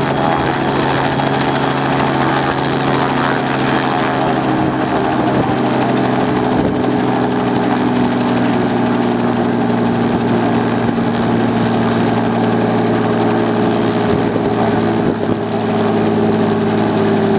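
Robinson R44 helicopter running on the ground, its six-cylinder Lycoming piston engine and main rotor making a steady drone. The main tone eases slightly lower over the first half, then holds.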